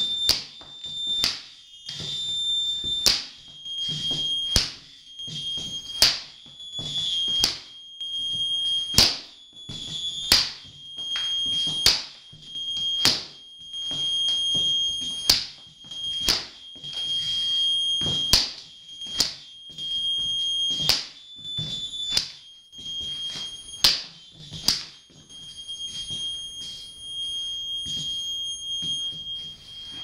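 Leather belt lashed against a floor and walls, giving sharp cracks about once every second or so. Under them runs a steady high-pitched tone.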